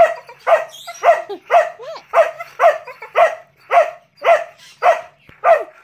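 White boxer dog barking over and over at a steady pace, about two sharp barks a second. These are demand barks for food at feeding time.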